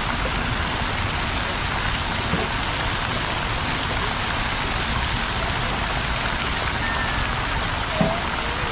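Steady rush and splash of water pouring in a public water plaza's fountains and cascades, an even wash of sound that does not change.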